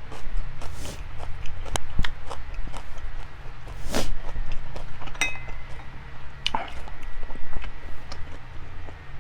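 Close-up eating sounds: chewing, with chopsticks and tableware clicking against dishes and a brief ringing clink a little past halfway.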